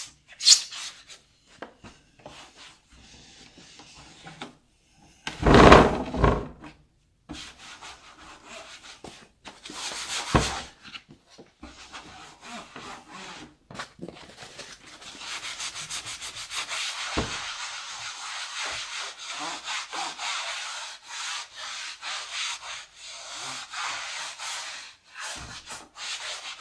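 Melamine foam sponge scrubbing the plastic case of a Macintosh 512Ke in quick strokes, with steady rubbing from about fifteen seconds in. A louder bump about six seconds in.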